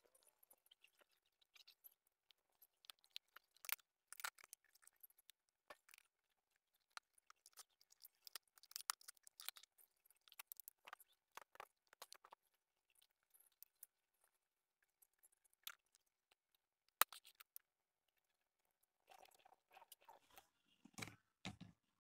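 Faint utility knife blade scoring and scraping the hard plastic back of a wall clock in many short, quick strokes, thinning out after about twelve seconds. Near the end the cut plastic is handled, with a couple of dull knocks.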